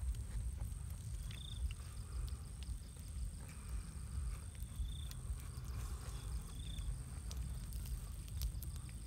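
Night-time insects keep up a steady high-pitched drone, with a few short chirps and scattered clicks from a wood campfire crackling, over a constant low rumble.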